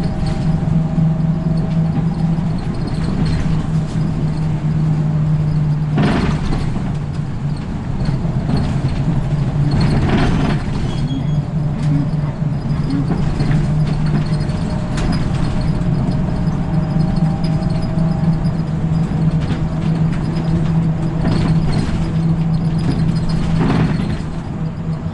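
Route bus driving along at steady speed, heard from inside the cabin at the front: a steady engine drone over road and tyre noise, with a few brief louder rushes of noise about six and ten seconds in and again near the end.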